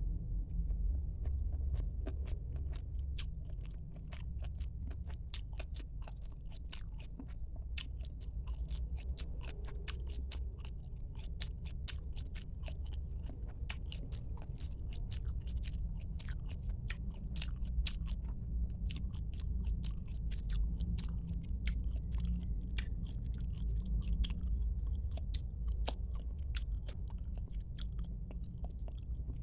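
Close-miked chewing of squid: a steady run of many small, sharp wet mouth clicks and bites, with a constant low rumble underneath.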